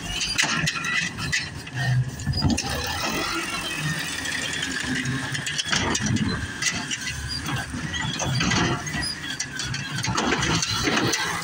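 Natural-gas automated side-loading garbage truck running while its arm grips a green-waste cart and lifts it up over the hopper, with a steady high whine and squeal from the lifting arm and knocks and rattles from the cart.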